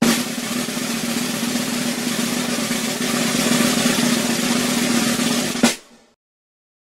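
Snare drum roll lasting about six seconds, ending in a single sharp hit, used as a fanfare to announce the next act.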